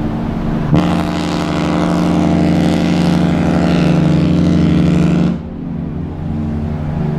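Cruise ship horn: a deep, steady chord over a continuous low drone, with one long, loud blast that starts suddenly about a second in and stops sharply after about four and a half seconds.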